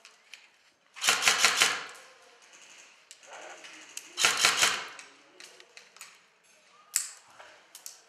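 Airsoft rifle firing two short full-auto bursts of rapid clicking shots, about a second in and about four seconds in, followed by a single sharp click near the end.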